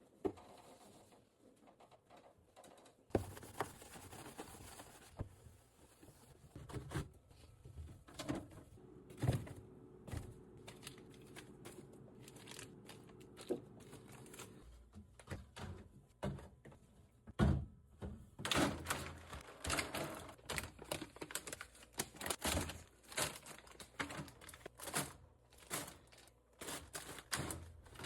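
Irregular clicks, knocks and thunks of groceries, containers and refrigerator shelves and drawers being handled and put away, with some rustling. A faint steady hum runs for several seconds in the middle.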